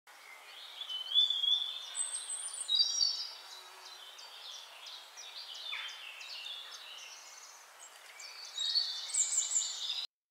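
Several birds singing and calling at once: overlapping high chirps, whistles and short trills, busiest near the start and again near the end, cutting off suddenly.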